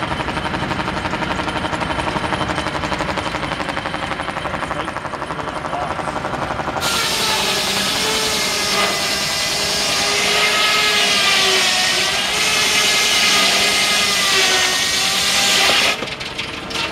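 Large circular sawmill blade, belt-driven by a steam traction engine, runs with a steady, fast, even machine rhythm. About seven seconds in it bites into a log and cuts for about nine seconds with a loud whine that wavers in pitch, stopping abruptly near the end as the cut finishes.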